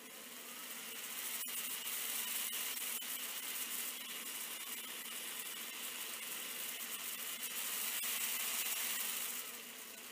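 Electric motor and drive train of a model diesel locomotive running steadily with its wheels turning free, in a test run after its axle shafts were oiled. It is a small, even whir with a faint high whine that comes up about a second in and drops away near the end, and it sounds pretty good for what it is.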